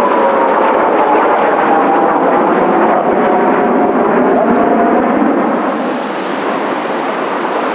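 Kawasaki T-4 jet trainers' turbofan engines passing, a loud rush with a whine that falls in pitch as they move away, easing off slightly after about five seconds.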